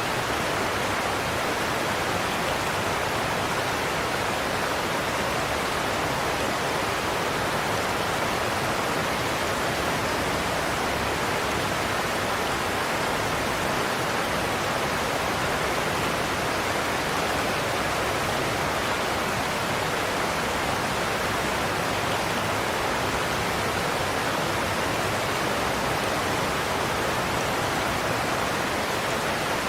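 Goðafoss waterfall: a large volume of water pouring over the falls in a steady, unbroken rush.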